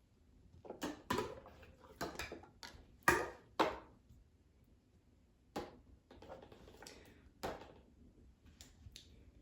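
Irregular scrapes, rubs and light knocks of pistol parts being handled and wiped while they are cleaned, loudest about three seconds in.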